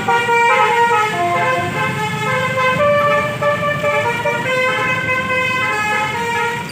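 Truck's Basuri V3 'telolet' multi-tone air horn playing a tune: a run of held horn notes that step from pitch to pitch every half second or so, over the low running of the truck.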